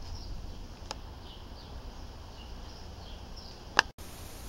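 Alligator-clip leads being clipped onto a capacitor's terminals: a small click about a second in and a sharp, loud click near the end, over a low steady hum.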